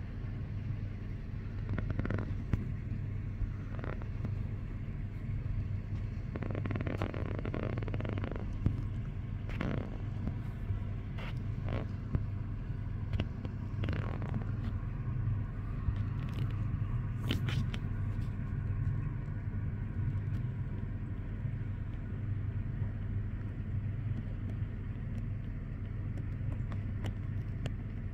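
Steady low rumble of distant city traffic, with scattered brief scrapes and knocks, most of them in the first two-thirds.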